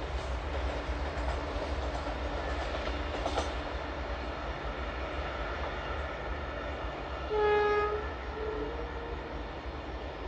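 WDP4 diesel locomotive hauling a passenger train, a steady low rumble of engine and wheels. About seven and a half seconds in comes a loud horn blast of well under a second, followed by a fainter, slightly higher note.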